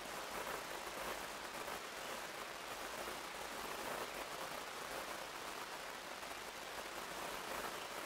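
Steady, even hiss of outdoor background noise, with no clear bird calls or distinct events standing out.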